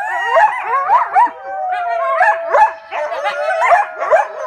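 A chorus of coyotes howling and yipping, many voices overlapping and sliding up and down in pitch, one long howl held steady through the middle, with children howling along.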